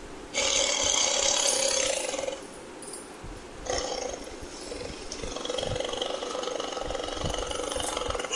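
Tiger roaring twice: a loud roar of about two seconds, then a second, longer and slightly quieter roar starting about a second and a half later.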